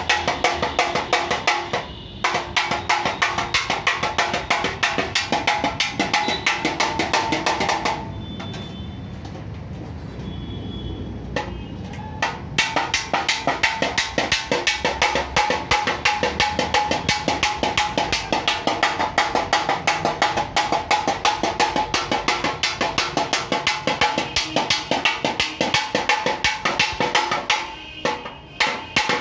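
Fast, steady hammer taps on a Mahindra Bolero front bumper, about six or seven blows a second, beating out accident damage. The tapping stops for a few seconds about a third of the way in, then carries on.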